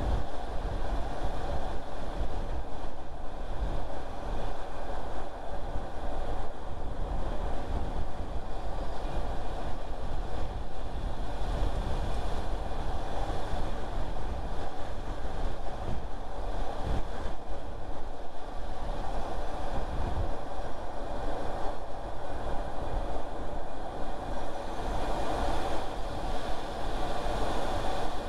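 Steady road noise of a car being driven: a continuous low rumble of tyres and running gear with a wash of wind noise, swelling slightly near the end.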